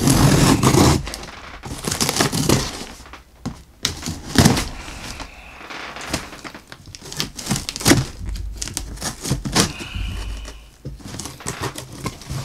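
A shipping package being opened by hand: irregular rustling and crinkling of packaging with knocks and clicks, loudest in the first second.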